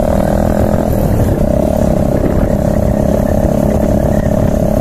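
Cruiser-style motorcycle's engine running steadily while riding along at an even speed, its drone holding one pitch. There is a low rumble of wind on the microphone.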